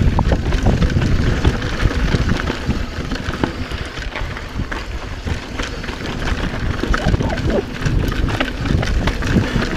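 Mountain bike ridden fast down a dirt singletrack: a steady rumble of tyres over dirt and roots and wind on the microphone, with frequent sharp clicks and rattles from the bike.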